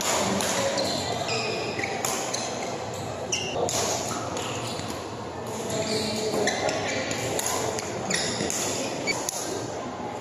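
Badminton rally: racket strings striking the shuttlecock with sharp hits every second or two, with short squeaks of shoes on the court floor. Behind it runs the echoing murmur of voices and play from other courts in a large hall.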